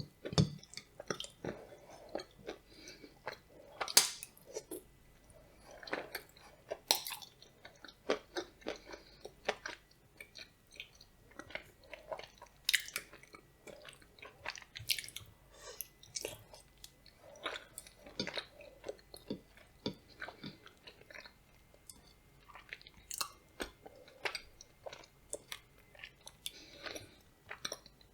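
Close-up chewing of blueberry soufflé with nuts, with irregular sharp crunches of the nuts between softer wet chewing sounds.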